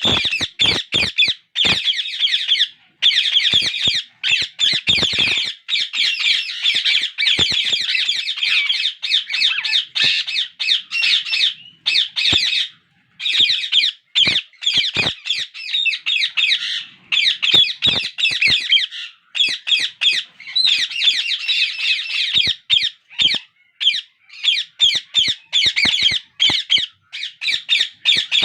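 Indian ringneck parakeet chicks giving harsh, rapid begging calls almost without pause, broken by short gaps, with scattered sharp clicks: hungry nestlings asking to be fed.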